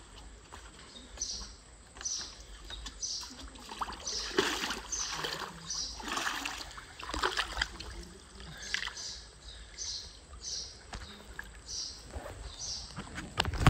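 A bird calling in short high notes, about two a second, with water splashing about a third of the way in.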